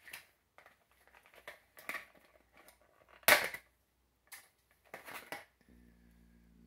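Stiff plastic blister packaging of an action figure being handled and pulled open: a series of separate crackles and snaps, the loudest a sharp snap about three seconds in.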